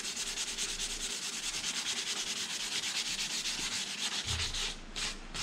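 Hand-sanding a hickory axe handle with sandpaper: quick, even back-and-forth rubbing strokes that stop about four seconds in, followed by a couple of separate strokes.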